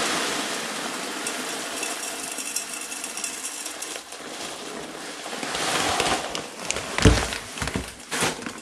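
Small horticultural lava rock poured from a plastic bag into a plastic plant pot: a steady trickle of grit for the first four seconds or so. Then the plastic bag rustles as it is handled, with a sharp thump about seven seconds in.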